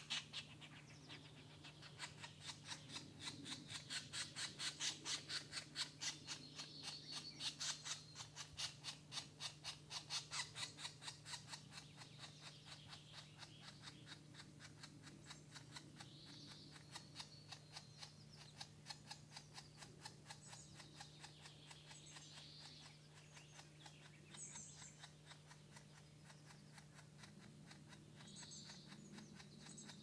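Green woodpeckers at the nest hole: a fast, even series of sharp ticks, several a second, loudest in the first half and fading later. Other songbirds give a few short high phrases in the background.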